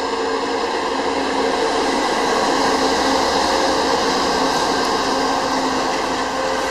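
A VIA Rail passenger train passing close by: its P42DC diesel locomotive's engine drones steadily while the passenger cars roll past with loud, steady wheel-on-rail noise.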